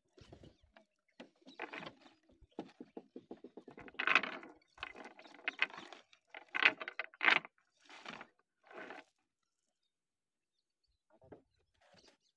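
Cast net being gathered and arranged by hand for a throw, the mesh rustling and its lead sinkers clattering in short, irregular bursts. It goes quiet for about two seconds near the end.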